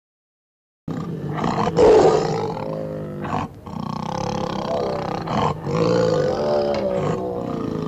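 Tiger roar sound effect: a run of deep roars starting about a second in, loudest near the start, with a short break in the middle, cut off abruptly at the end.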